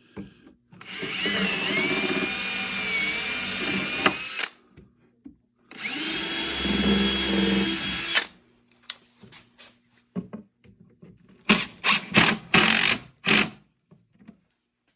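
Power drill running under load in two long spells of a few seconds each, pre-drilling holes into wooden drawer fronts, with a steady motor whine. Several short bursts from the drill follow near the end.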